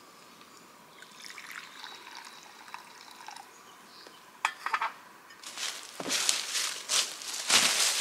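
A hot drink poured from a small camping pot into a wooden kuksa cup, a faint trickle, then a few light clicks. Louder crackling of dry leaves underfoot follows in the last few seconds.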